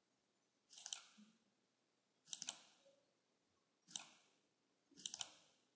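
Computer mouse buttons clicking in four quick double-clicks, each a tight cluster of sharp ticks, spaced about a second or so apart.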